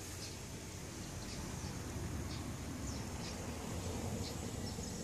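Quiet outdoor shoreline ambience: a steady low rumble, like wind on the microphone, with faint, short high chirps scattered every second or so.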